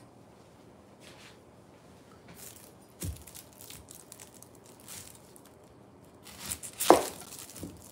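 Chef's knife cutting an onion on a wooden cutting board: a thump about three seconds in, then scattered short knocks and clicks, the loudest near the end.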